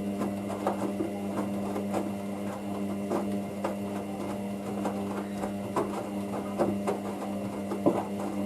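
Hoover DYN9144D3X washing machine running a Coloureds 40 wash: a steady motor hum with light irregular knocks from the load of towels and table mats in the drum.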